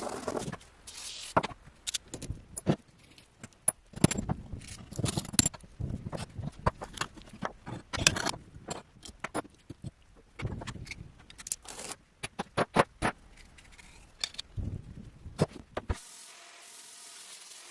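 A quick-cut run of metal clicks, clinks, knocks and scrapes from an air rifle being taken apart and worked on, with a steady noise near the end.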